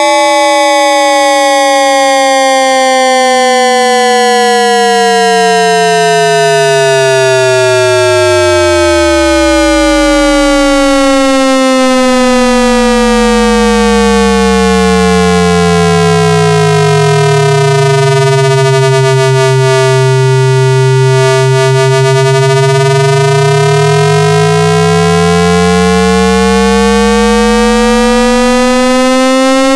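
Loud electronic AM radio sound effect: several whistling tones at once, sliding slowly down in pitch through the first half and climbing back up in the second, their lines crossing, with no break.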